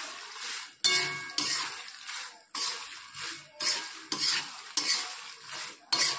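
Popped corn being tossed and stirred in a large metal kadai with a wooden spatula: dry rustling of the popcorn and the spatula scraping the pan, in repeated strokes about once or twice a second.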